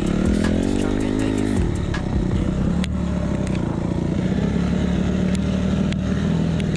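Off-road motorcycle engine revving, then dropping about one and a half seconds in to a steady lower note, with a few sharp clicks over it.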